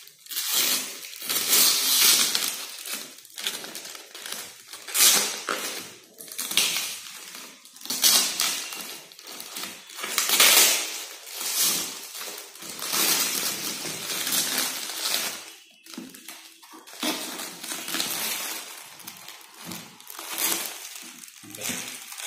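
Clear plastic bag crinkling and rustling in irregular bursts as it is pulled up and off a desktop printer.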